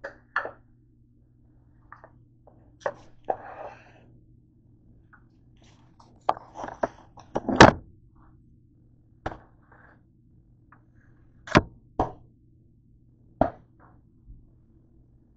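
Scattered knocks and clacks of things being handled and set down on a kitchen counter, about a dozen sharp hits at irregular intervals, over a faint steady low hum.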